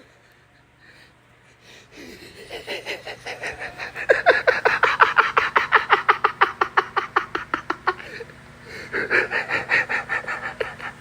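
A person's wheezing laughter: rapid breathy gasps, about six a second, building from about two seconds in. It breaks off briefly near the end, then starts again.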